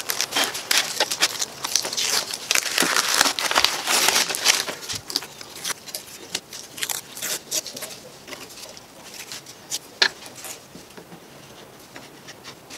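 A hand brushing sawdust off a scroll saw's metal table in quick, dense strokes. After that come lighter rustles and clicks as thin plywood cut-outs are handled on a wooden workbench, with one sharp knock about ten seconds in.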